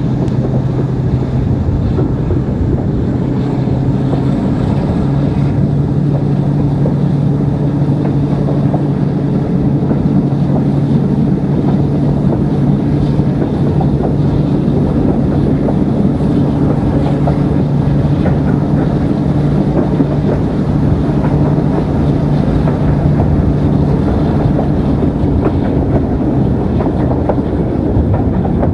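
Twin Maybach diesel engines of a British Railways Class 42 'Warship' diesel-hydraulic locomotive working hard, heard from an open carriage window: a steady engine drone that steps up slightly in pitch about a second in. Carriage wheels run on the rails and wind buffets the microphone underneath.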